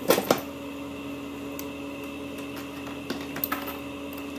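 A coin dropped into a piso-net coin timer's slot: two sharp clicks at the start, then a few lighter clicks about three seconds in, over the steady hum of the running computer.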